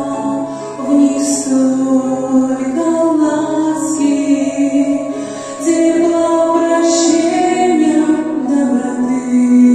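Female voices singing a slow Russian-language hymn in long held notes, over a steady low sustained accompaniment.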